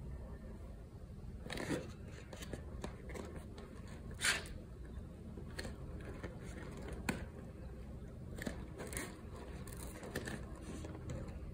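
An instant noodle bowl being handled and turned over in the hands: scattered short scrapes and rustles of fingers against the printed cup and its plastic lid, the loudest about four seconds in, over a steady low hum.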